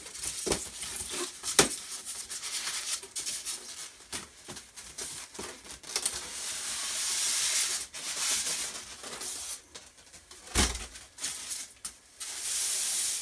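Packaging being handled during an unboxing: crinkling, rustling and rubbing with many sharp clicks, and a heavier knock about ten and a half seconds in.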